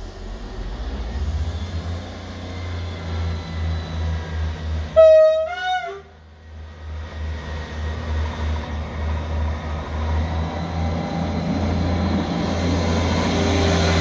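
Class 158 diesel multiple unit sounding its horn once, about five seconds in: a short steady note followed by a second note that wavers unsteadily, an odd-sounding horn. A low diesel rumble runs underneath, growing louder with a rising whine near the end as the unit powers up.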